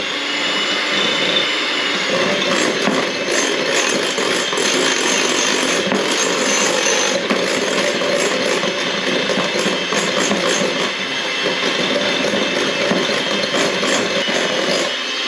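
Electric mixer running steadily at one speed, its beaters whipping heavy cream with powdered sugar and vanilla into whipped cream. It winds down just as the sound ends.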